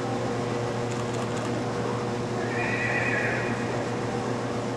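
A horse whinnies once, a quavering call about a second long, midway through. A steady low hum runs underneath.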